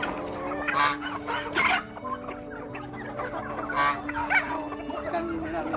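A flock of free-range country chickens clucking together, with several louder, sharper calls standing out: about a second in, again shortly after, and twice around the middle.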